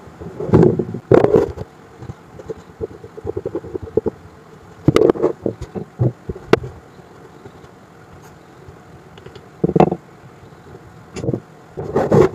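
Two wooden blocks of a finned corner joint handled on a wooden tabletop: scattered knocks and clatters as the pieces are pushed together, pulled apart and set down, with a quick run of light rattling taps in between and a few sharp clicks.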